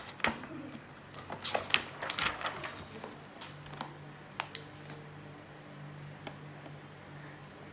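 Paper rustling and small knocks as a paperback workbook is opened and its pages are flipped, busiest in the first three seconds. After that it goes quieter: a few light ticks of a ballpoint pen writing on the page, over a low steady hum.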